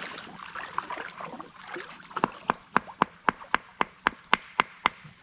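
A rock being struck repeatedly against another rock, about eleven sharp clicks at roughly four a second, starting about two seconds in: someone hammering at a creek stone to crack it open.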